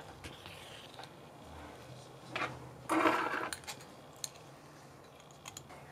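Small sounds of hand sewing: a short rustle of linen thread and fabric being handled, loudest a little before the middle, then a few light metallic clicks as scissors are taken up to snip the thread.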